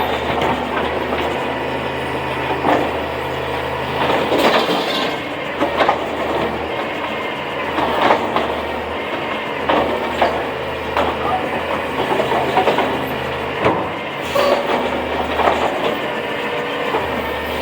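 Diesel garbage truck engine running, with short bursts of turbo flutter chatter about nine times, irregularly spaced. Turbo flutter is compressor surge as the throttle eases off.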